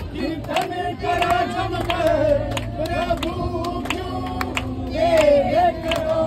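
A group of men and women singing a Hindu bhajan (devotional song) together, keeping time with regular hand claps.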